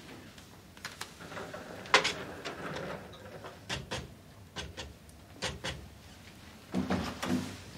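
Scattered light clicks, taps and rustles of small objects being handled on a desk, with a louder cluster of knocks near the end.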